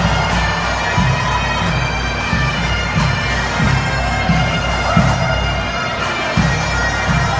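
Bagpipes playing a tune over their steady drones, with regular low thumps beneath.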